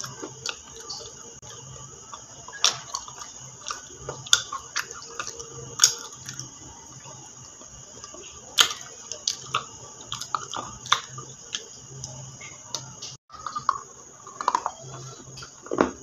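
Close crunching from biting and chewing something hard and dry: irregular sharp cracks, a few of them much louder, come every second or so. A steady high hiss runs underneath.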